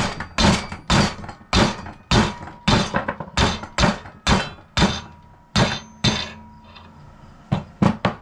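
A mallet hammering a steel bracket clamped in a bench vise, bending it over toward 90 degrees: about a dozen sharp blows, roughly two a second, with a faint metallic ring between them. After a short pause two last blows land near the end.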